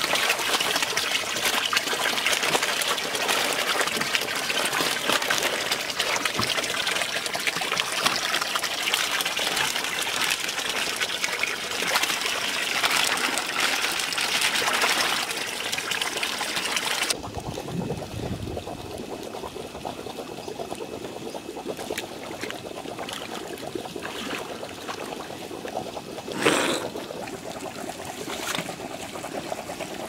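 A stream of water pouring from a pipe into a tank crowded with koi, splashing steadily. About halfway through it cuts off suddenly to a quieter running-water sound, broken once by a short, loud noise.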